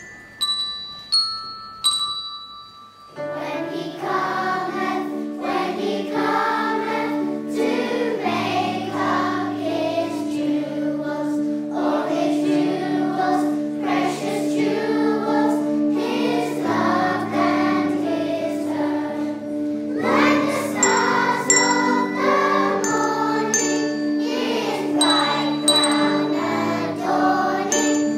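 A few separate bell notes ring out one after another, then full music begins about three seconds in: bells playing together with a choir singing.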